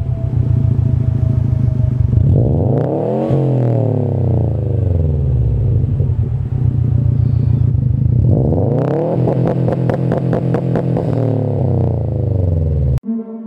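2017 Subaru WRX STI's turbocharged 2.5-litre flat-four running through an Invidia R400 cat-back exhaust, revved twice from idle. It rises to about 4500 rpm and falls back, then rises to about 5500 rpm, is held with a rapid stutter, and drops back. The engine sound cuts off abruptly near the end and soft electronic music begins.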